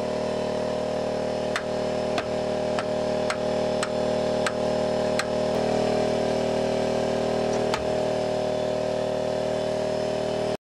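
A steady droning hum with a string of sharp clicks, about one every half second or so for a few seconds, then one more a little later.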